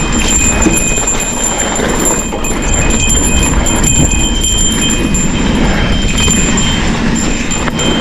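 A cow bell on a mountain bike clanking and ringing without a break as the bike rattles down a rough trail, over steady tyre and trail noise.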